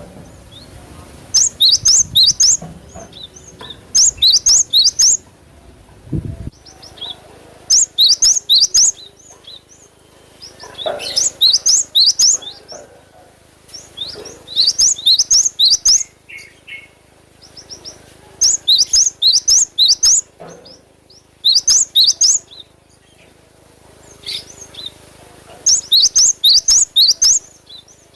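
Cinereous tit (gelatik batu) singing: loud phrases of fast, repeated high chirps, each about a second long, coming again every two to three seconds.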